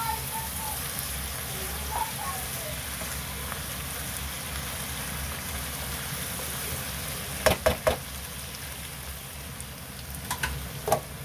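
Smoked duck, onions and mushrooms sizzling steadily as they are stir-fried in a nonstick wok, with three sharp knocks of the spatula against the pan about seven and a half seconds in and a few more near the end.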